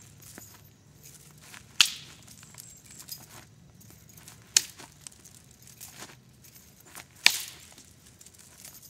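Doubled motorcycle chain clacking as it is unwound and wound back around the hand: three sharp metallic clacks about three seconds apart, with fainter clinks between.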